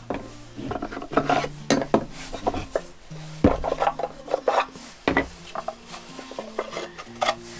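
Wooden bandsaw-box drawers slid out of the box body and set down one by one on a plastic workbench top: a run of irregular wooden knocks and clunks with rubbing scrapes between them.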